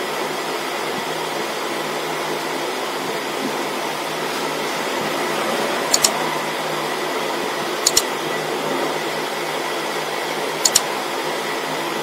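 Steady fan-like room noise with a low hum. Three sharp double clicks of a computer mouse, one about halfway through, another about two seconds later and one near the end: the click sound effects of an on-screen like-and-subscribe animation.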